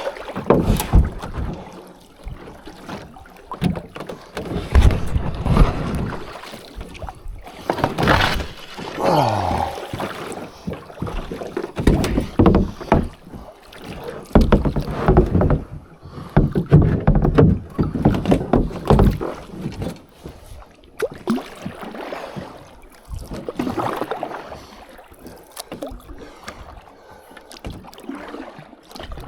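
Kayak paddle strokes splashing in choppy water, coming in uneven surges every second or two, with wind buffeting the microphone.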